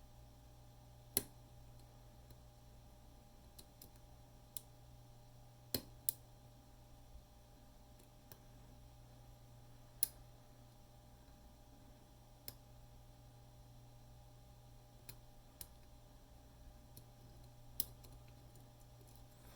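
Sparse, irregular clicks of a hook pick and tension wrench working the wafers of an Illinois Duo cabinet lock, about a dozen in all with the sharpest about a second in and near the middle, over a faint steady low hum.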